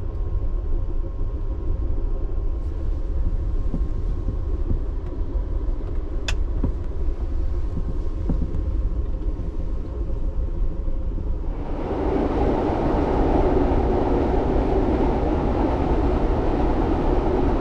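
Running noise of an Amtrak Viewliner II sleeping car on the move, heard from inside: a steady low rumble with a single sharp click about six seconds in. About twelve seconds in, the rail noise turns louder and fuller, with more hiss.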